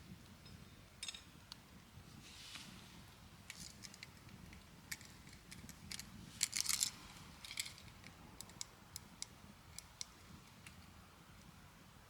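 Scattered light clicks and small metallic clinks of small objects being handled, with a brief louder cluster of clicks about six and a half seconds in.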